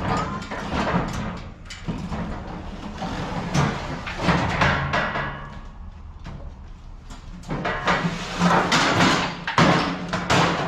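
Heavy metal barbecue grill being moved and lifted onto a load: repeated clattering, knocking and scraping of its metal parts, loudest near the end.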